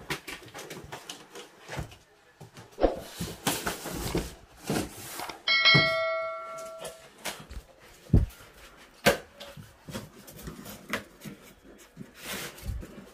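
Cardboard box and styrofoam packing being scraped, knocked and shifted as a boxed LED monitor is handled. About five and a half seconds in, a bell-like electronic chime rings for about a second and a half and fades.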